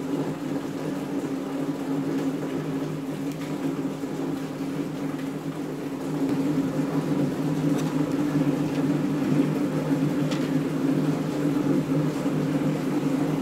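A steady low machine hum, a little louder about halfway through, with a couple of faint clicks near the end.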